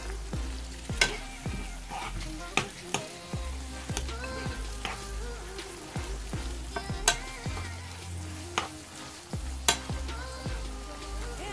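Ground beef and onions sizzling in a frying pan while a metal spoon stirs them, with sharp clicks of the spoon against the pan about once a second.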